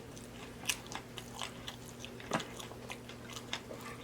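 Close-miked eating sounds: chewing with wet lip smacks and mouth clicks, two of them louder, about a second in and just past the middle, over a faint steady hum.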